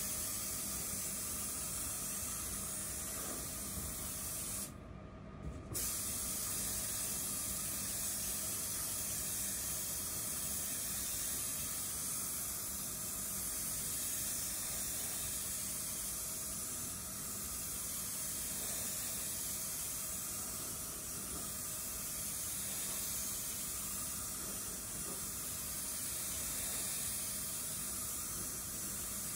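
Anest Iwata gravity-feed spray gun hissing steadily as compressed air at 2.4 bar atomises red single-stage paint for a slow, heavy wet coat. The hiss drops away briefly about five seconds in.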